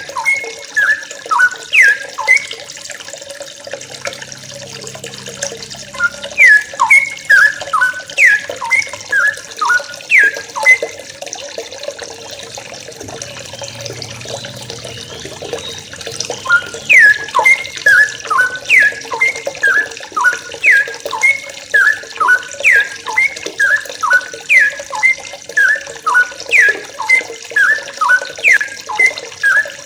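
A flock of yellow-vented bulbuls calling: many short chirps that each drop quickly in pitch, overlapping in fast runs, with a lull of a few seconds around the middle. Under the calls runs a steady hiss like running water.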